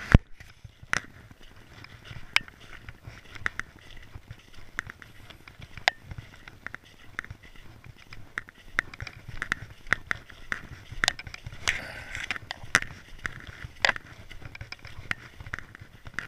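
Irregular crunching, sharp clicks and crackles over a faint steady hiss, from a camera moving along a lane of crusted snow and slush. The crackling is densest about three-quarters of the way through.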